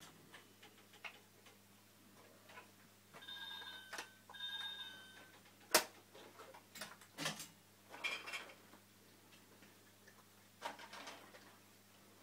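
Faint steady low hum of the aquarium's return and circulation pumps, with scattered light clicks and knocks. Two short high beeps sound about three and four and a half seconds in.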